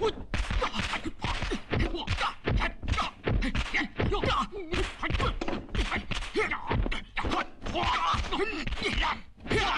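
Martial-arts fight sound effects: a fast run of punch and block whacks and thuds, a few a second, with short grunts from the fighters in between.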